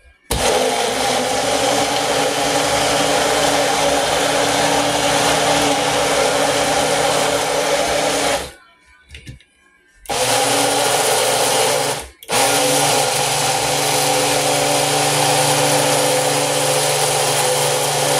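Magic Bullet blender motor running with its cup pressed down, blending strawberries and banana into a smoothie with a steady whir. It runs for about eight seconds, stops for a second and a half, then starts again, with a brief cut-out about two seconds after restarting.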